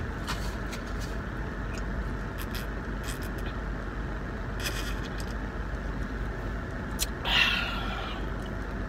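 Drinking from a large paper cup, with a few small clicks and a short sip, then a loud breathy open-mouthed 'ahh' about seven seconds in. Under it runs the steady hum of an idling car heard from inside the cabin.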